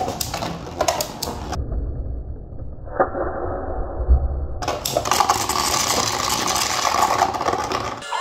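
Two Beyblade spinning tops whirring and scraping across a plastic stadium floor, with sharp clacks as they strike each other or the wall, the loudest about 3 and 4 seconds in. For about three seconds from roughly 1.5 s in the sound turns muffled, then comes back clear.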